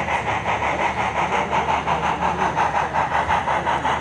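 HO-scale model of Strasburg steam locomotive No. 90, a 2-10-0 Decapod, running with its sound decoder playing quick, even steam chuffs, several a second.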